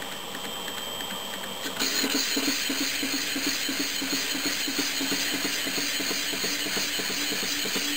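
Small metal lathe running, its spindle turning an offset matrix that holds a bronze blank. About two seconds in, the cutting tool bites into the bronze face and the sound gets louder: a steady hum with rapid, regular ticking as a circle is cut into the bronze.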